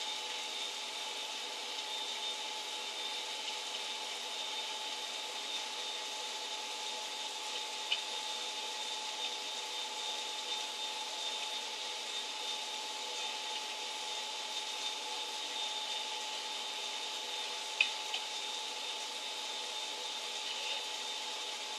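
Steady low hiss with faint steady whining tones, broken by two small clicks, one about eight seconds in and one near eighteen seconds.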